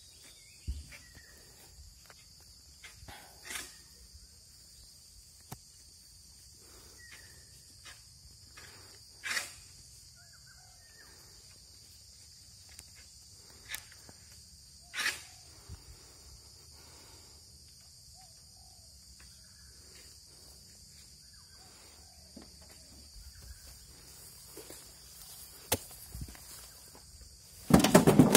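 Steady high-pitched insect drone over grass, with scattered footsteps and knocks from a metal wheelbarrow being pushed. A louder clatter comes near the end.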